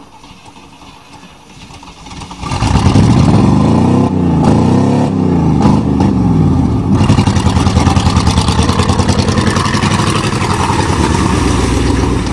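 1988 Chevrolet pickup's 305 small-block V8 revving hard as the truck drives up close. The engine is faint at first, then jumps to loud about two and a half seconds in, its pitch rising and falling with the throttle.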